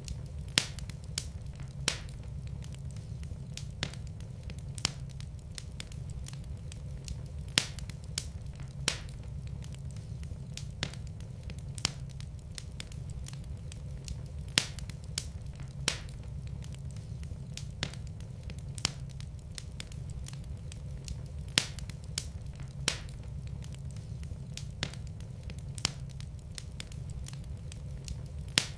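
Wood fire burning in a fireplace: a steady low rumble with sharp, irregular crackles and pops about once a second.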